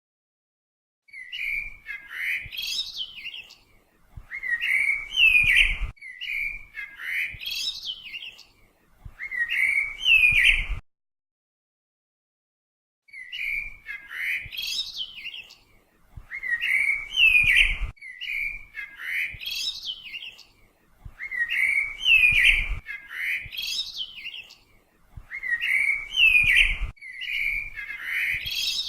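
Bird chirping in short phrases of rising chirps, the same phrase repeated over and over every two to three seconds, starting about a second in and pausing for about two seconds midway.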